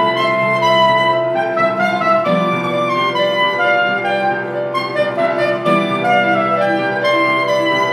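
Soprano saxophone and grand piano playing a minimalist chamber piece: the saxophone holds long melodic notes over a repeating piano accompaniment.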